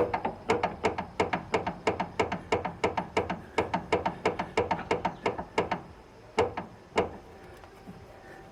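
Worn outer tie rod end knocking as it is worked back and forth by hand, a quick run of sharp clacks at about five a second, then two single knocks. The knock comes from a worn ball-joint seat that gives the tie rod end nearly 2 mm of play, the source of a front-end knocking noise.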